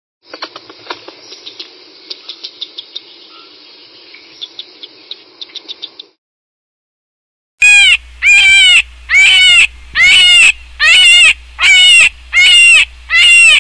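Red squirrel gnawing on food held in its paws: a soft scraping broken by many sharp clicks of teeth. About seven and a half seconds in, after a brief silence, come loud animal calls, about eight of them evenly spaced, each falling in pitch.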